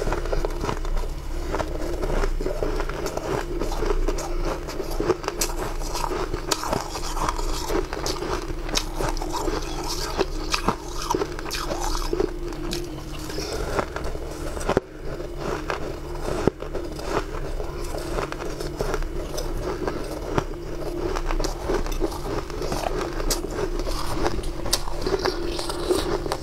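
Close-up eating of fluffy, snow-like ice: a metal spoon scraping into the heap and crisp, crackling crunches as it is bitten and chewed, in many small irregular clicks.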